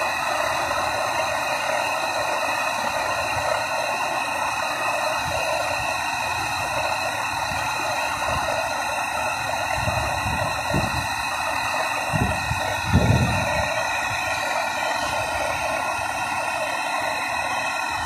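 Gas torch flame hissing steadily as it heats the brazed pipe joints on an air-conditioner compressor to free them. A few low thumps come about two-thirds of the way through, the loudest near 13 seconds.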